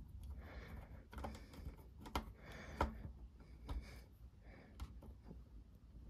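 Faint, scattered clicks and scrapes of a small screwdriver working a terminal screw inside a plastic waterproof cable junction connector.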